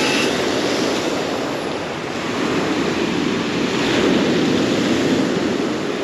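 Black Sea surf breaking and washing up a pebble beach, an even rushing that dips slightly and then swells louder about four seconds in as a wave comes in.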